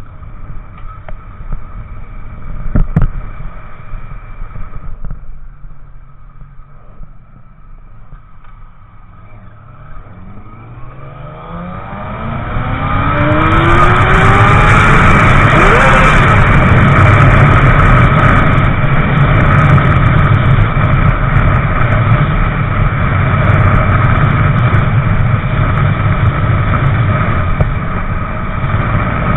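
Motorcycle ride heard from on the bike: a sharp knock about three seconds in, then the engine accelerating with a rising pitch, then loud steady engine and wind noise at freeway speed.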